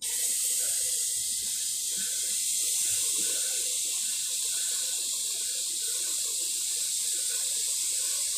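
Juice from cooked chicken poured from a plastic container in a thin, steady stream into a pot: a continuous watery hiss.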